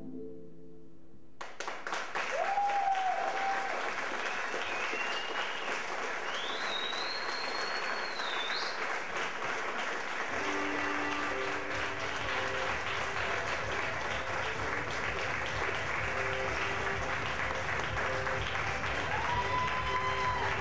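Theatre audience applauding loudly, with a few high whistles and cheers. About ten seconds in, curtain-call music with sustained notes begins under the applause.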